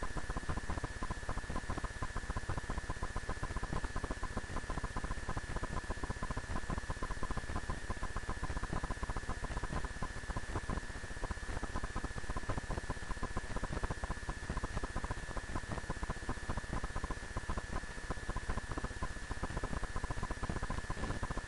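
Steady electrical hiss and buzz with a constant thin high whine, unchanging throughout.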